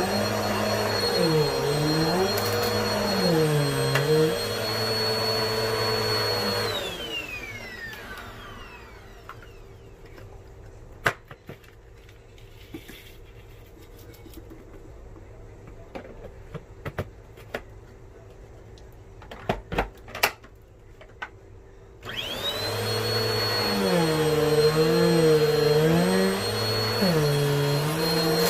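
Vacuum cleaner running, its pitch dipping and rising with each back-and-forth stroke. About a quarter of the way in it is switched off and its whine winds down, leaving some fifteen seconds of small clicks and knocks. It is then switched on again, whining back up to speed, and runs to the end.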